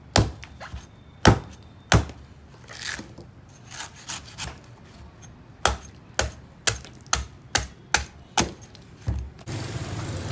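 Hammer blows: a few scattered strikes, then a steady run of about two a second. Near the end a steady rushing noise starts suddenly.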